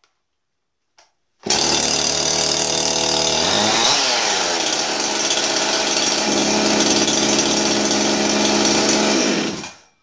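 Husqvarna 51 two-stroke chainsaw engine running, coming in suddenly about a second and a half in. Its pitch dips and climbs again around four seconds in, then it runs steadily until it dies away just before the end. It runs readily again after a carbon-fouled spark plug was cleaned, so the engine is not burnt up.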